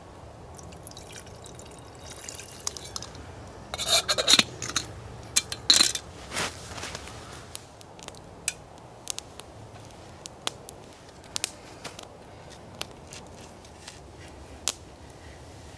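Water poured from a bottle into a small metal camp kettle, with a run of louder splashes and knocks about four to six seconds in. After that, a small wood campfire crackles with scattered sharp pops.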